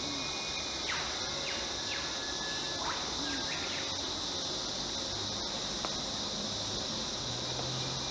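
Steady high-pitched insect chorus, with a few short sweeping bird whistles between about one and three and a half seconds in.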